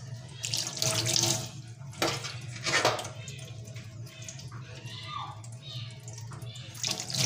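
Tap water pouring into a stainless steel kitchen sink and running straight down the drain, with louder swells about a second in, near three seconds and at the end. The flow drains smoothly with no backing up: the drain is now clear of its clog.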